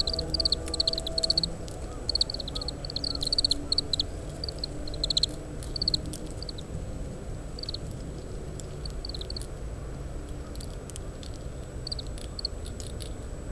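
Oriental greenfinch giving its short twittering call notes, thick in the first six seconds and then scattered, over a low rumble of wind.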